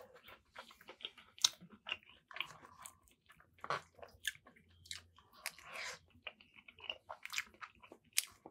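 A person chewing a mouthful of buffalo chicken mac and cheese close to the microphone: quiet, irregular wet mouth smacks and clicks.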